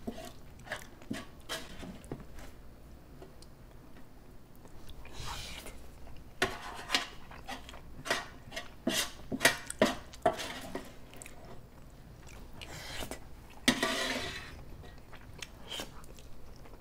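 Close-up chewing of a mouthful of chili rice, mixed with a serving spoon scraping and clicking on a sheet pan as the last scraps are gathered, in scattered short clicks and scrapes.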